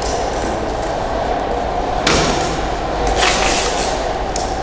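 Steady workshop hum with a faint constant tone, broken by two short scraping, rustling noises about two seconds in and again about a second later.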